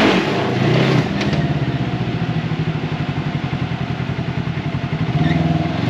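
Side-by-side UTV engine blipped briefly at the start, then running at low steady throttle with a pulsing beat, and rising in revs again near the end.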